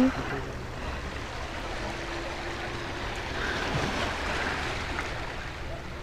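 Sea waves washing steadily on a pebble and boulder shore, an even hiss.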